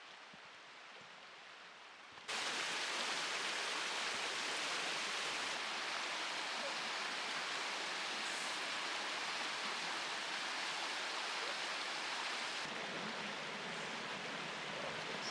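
Steady rush of falling, splashing water, as from a waterfall or spring pouring into a pool. It steps up sharply in loudness about two seconds in.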